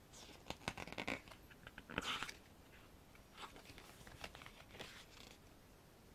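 Pages of a photo book being turned and handled: a quick run of paper rustles and clicks in the first second, a louder page swish about two seconds in, then a few softer rustles.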